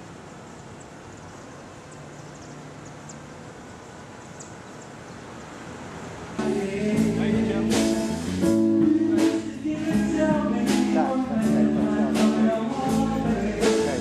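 Faint street background, then, about six seconds in, band music with singing and regular drum or cymbal hits cuts in suddenly and runs on loudly.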